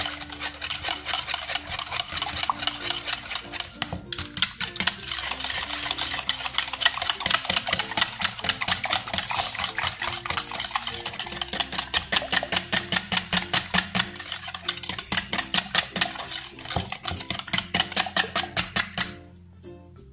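Wire balloon whisk beating a thin egg-and-milk mixture by hand in a plastic measuring jug, quick regular strokes rattling against the jug's sides. The whisking stops about a second before the end.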